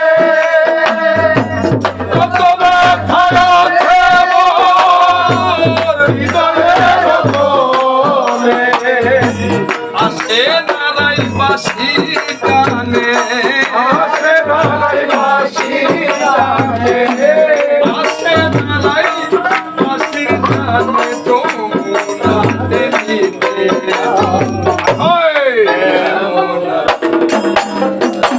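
Live Bengali folk song: a voice singing long, wavering held notes over hand percussion, with a steady low drum beat repeating about once a second.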